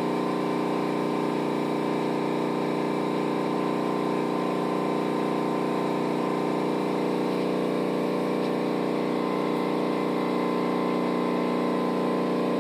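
Steady mechanical hum: an even drone of several held tones that does not change.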